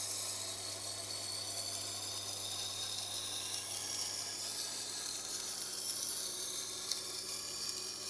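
Knife edge being ground on a 320-grit diamond wheel of a Tormek sharpener: a steady grinding hiss over the low hum of the running motor.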